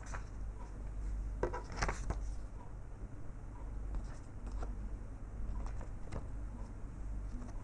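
Hands handling a phone's box and its accessories: light rustles and small plastic clicks, busiest about one and a half to two seconds in, over a steady low hum.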